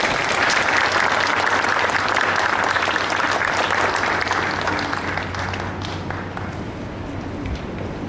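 Audience of judoka applauding, the clapping strongest over the first few seconds and dying away near the end.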